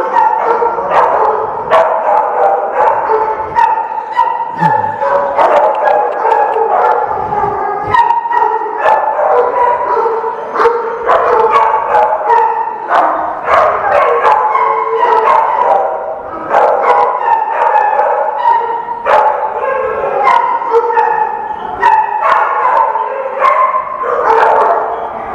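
Many dogs in shelter kennel runs barking at once, loud and continuous, one bark overlapping the next without a break.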